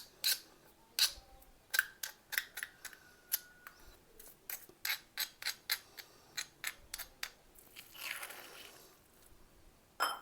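Sharp, irregular clicks and taps of a hard utensil against a small stone mortar as fried-peanut and green-chilli thecha chutney is worked in it. A short scraping rasp comes about eight seconds in.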